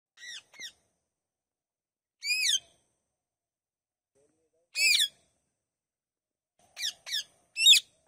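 Indian ringneck parakeets giving short, sharp calls, about seven in all: a quick pair, then single calls every couple of seconds, and another pair and a final, loudest call near the end.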